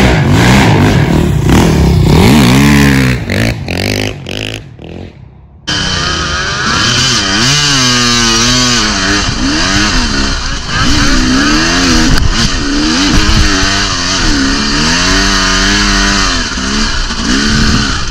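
Dirt bike engine revving, its pitch rising and falling as the throttle is opened and closed. It fades for a couple of seconds, then cuts abruptly about five and a half seconds in to more engine running with the pitch swinging up and down again and again.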